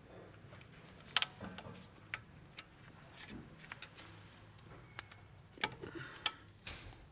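A handful of faint, sharp clicks and light taps, the loudest about a second in, from a brake pad wear sensor wire and its small clips being worked free of a brake caliper by gloved hands and a pick tool.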